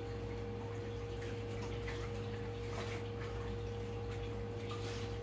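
A steady electrical hum with a constant mid-pitched tone, and a few faint light clicks and taps scattered through it.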